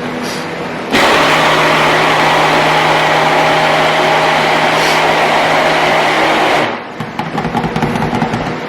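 Handheld stick blender running in soap batter for about six seconds, starting about a second in and cutting off suddenly, blending the white portion of cold-process soap.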